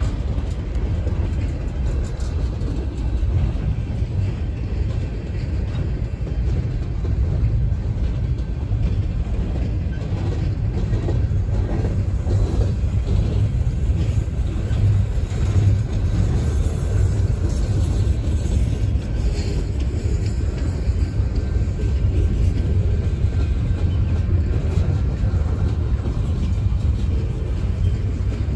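Freight train cars rolling past: a steady low rumble of steel wheels on the rails as gondolas and tank cars go by.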